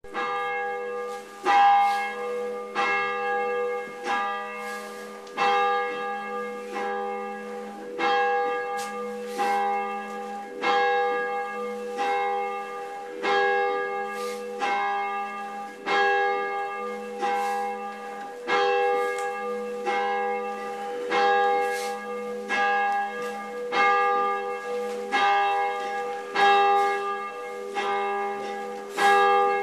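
Church bell tolled by pulling its rope, a stroke roughly every second and a quarter, each strike ringing on into the next. It is a death knell, one stroke for each year of a dead man's life.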